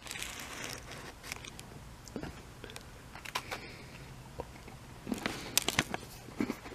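A crunchy chocolate cream sandwich cookie being bitten into and chewed, scattered crisp crunches with a louder run of them about five seconds in.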